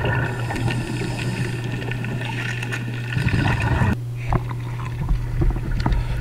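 Underwater ambience picked up by an action camera in its waterproof housing: a steady low hum under water noise, with scattered clicks and crackles. The sound changes abruptly about four seconds in, where the footage cuts.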